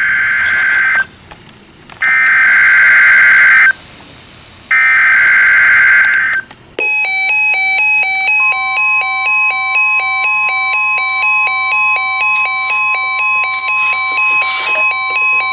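Weather radio alert for a tornado watch: three one-second bursts of SAME digital header data, a harsh screech, about a second apart. Then a receiver alarm beeps in a rapid repeating two-pitch pattern, joined about eight seconds in by the steady weather radio warning alarm tone.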